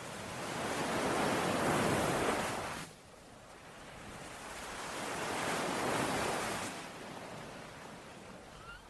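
Ocean waves surging and breaking on the shore, two swells about four seconds apart; the first cuts off abruptly just before three seconds in.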